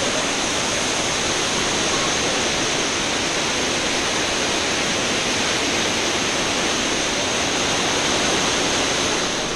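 Waterfall pouring down a rock face into a pool below: a steady rushing of falling water.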